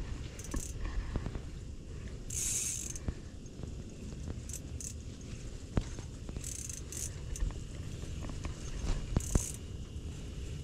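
Fishing reel being cranked to bring in a hooked whitefish: steady mechanical clicking and whirring, with a few short bursts of hiss.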